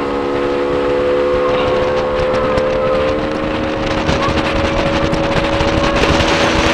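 Motorboat engine running steadily at speed, its pitch edging up slightly about three seconds in, over the rush of wind and water past the hull.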